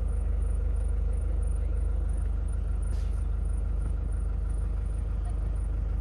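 Vehicle engine idling, a steady low rumble heard from inside the cab.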